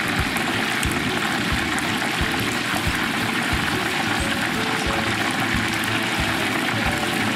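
Hot oil bubbling and sizzling steadily in a large deep fryer as battered chicken pieces fry.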